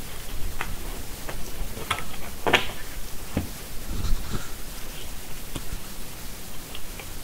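Scattered light clicks and knocks of small objects being handled at close range, the loudest about two and a half seconds in, over a faint steady hiss.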